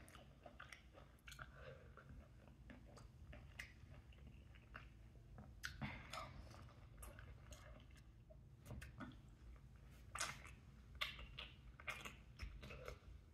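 A person chewing and biting soft mango pieces: faint, irregular wet mouth clicks and smacks, a little busier about halfway through and again near the end.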